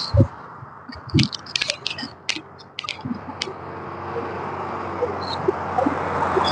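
A few sharp clicks and low knocks, then a car approaching along the road, its tyre and engine noise rising until it passes close by near the end.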